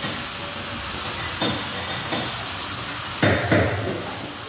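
Several sharp metallic knocks over a steady hiss, the loudest two close together about three seconds in.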